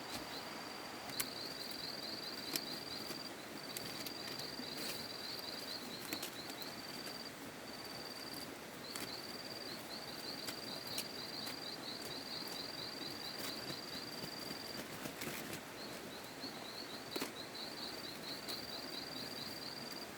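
An insect trilling in long, high-pitched runs broken by short gaps, over a steady outdoor hiss, with scattered sharp clicks.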